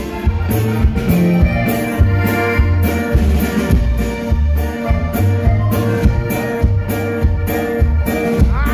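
Live norteño band playing an instrumental passage: button accordion carrying the melody over bajo sexto, electric bass and drum kit, with a steady beat and a walking bass line.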